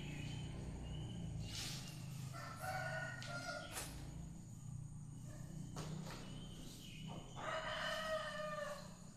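A bird calling twice, each drawn-out call lasting about a second, the first about a quarter of the way in and the second near the end, over a steady low hum and a few sharp clicks.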